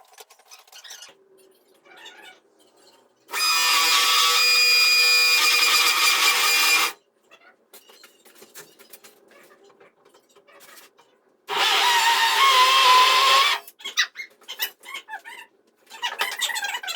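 A power tool, drill-like, runs twice with a steady whine: once for about three and a half seconds, then, about five seconds later, for about two seconds with a slightly wavering pitch. Faint clicks and knocks fall between the two runs.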